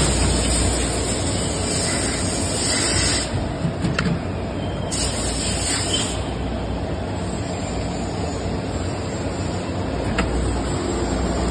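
Steady mechanical running noise of a compression moulding press in a factory, with a low hum under it. A few light clicks come through as the mould opens and the moulded parts come off.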